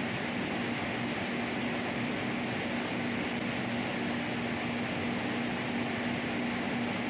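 LogRipper-300 scragg mill running: a steady machine hum with one constant pitch and no change in level.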